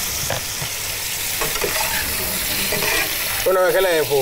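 Steady sizzling of pork spare ribs cooking on the heat. A short wavering voice-like sound comes in near the end.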